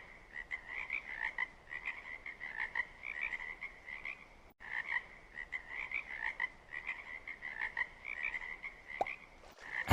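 Frog chorus: many short croaking calls repeating and overlapping, with a brief gap about halfway through.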